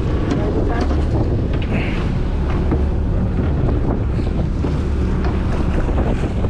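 Strong wind buffeting the microphone aboard a fishing boat in stormy weather: a steady low rumble with scattered short clicks.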